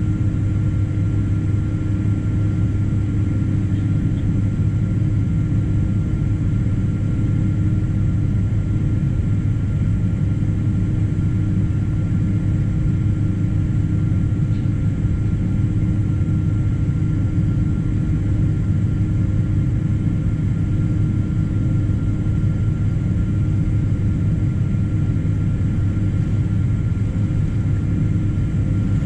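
Cabin noise aboard a Boeing 777-200 with its jet engines running: a steady low-pitched noise with a faint constant whine, holding level with no rise in power.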